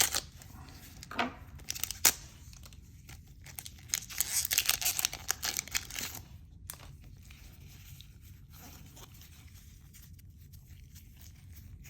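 A One Piece Card Game booster pack's foil wrapper being torn open and crinkled, densest and loudest about four to six seconds in. Quieter handling of the cards follows.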